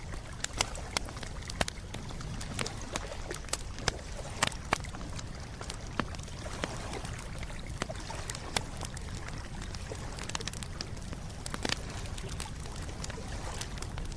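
Wood campfire crackling, with irregular sharp pops, a few a second, over a steady low rush.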